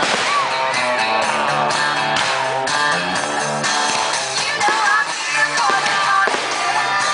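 Rock-style music with guitar and a singing voice.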